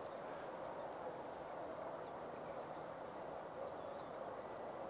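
Quiet, steady outdoor background noise over open farmland: an even hiss with no distinct event standing out.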